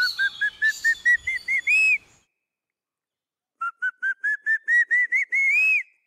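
A man whistling an imitation of the crested hawk eagle's call: two runs of short, shrill notes, each climbing step by step and ending in a longer note, with a pause between the runs.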